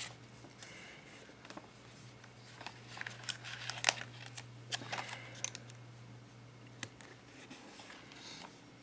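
Paper sticker sheets rustling and stickers being peeled and pressed onto a planner page: scattered light clicks and rustles, busiest in the middle, over a steady low hum.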